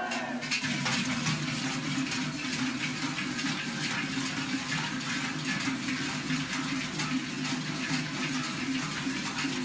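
Many cowbells and small goat bells shaken at once by a large group of children, a dense, steady clanging with no pause.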